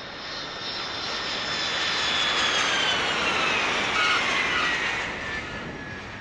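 Jet airliner cabin noise from beside the wing on landing: a steady rush of engine and air noise under a high engine whine that slowly falls in pitch. It swells in the middle and eases off near the end.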